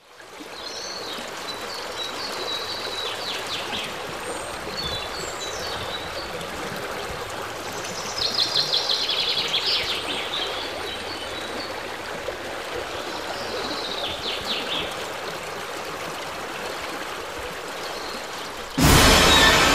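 Shallow forest stream running and trickling over rocks, with birds calling above it several times, the loudest a rapid trill about eight seconds in. Music cuts in loudly just before the end.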